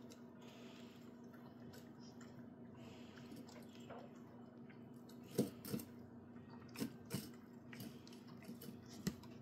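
Dog eating pieces of steak from a small ceramic bowl: faint chewing and licking, with a few short clicks against the bowl about halfway through and near the end.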